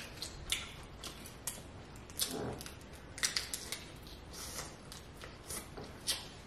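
Eating sounds from snow crab meat being chewed: a string of sharp, wet mouth clicks and lip smacks.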